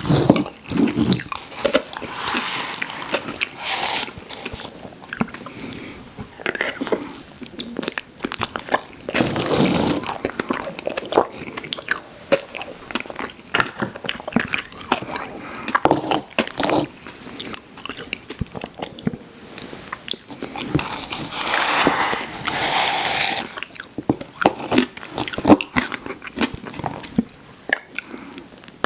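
Mouth sounds of someone eating Christmas-tree-cake ice cream: chewing, with many short sharp clicks and smacks and a few longer noisy stretches.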